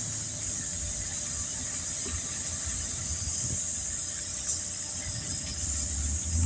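Steady hiss of compressed air flowing from an air hose, as a patched car tire is aired up, over a low rumble.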